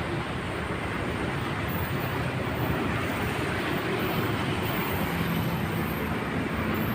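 Steady rumbling noise of a passing train.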